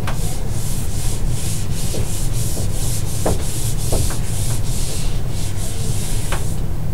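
Handheld eraser rubbed back and forth across a dry-erase whiteboard, wiping off marker writing in quick strokes, about three a second, that stop shortly before the end.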